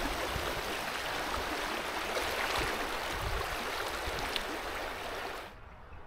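Steady rushing of fast-flowing river water, with an irregular low rumble underneath; the rushing drops away abruptly near the end.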